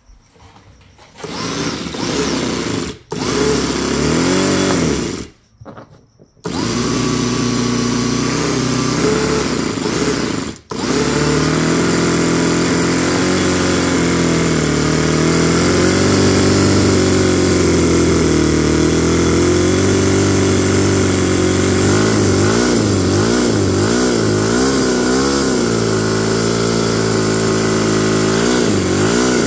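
Toyan FS-B400 miniature four-cylinder four-stroke boxer engine starting: it runs briefly and cuts out twice, then keeps running with its speed wavering up and down as the carburettors are adjusted. It is running rich and temperamental, and it wants to die when the needles are turned in.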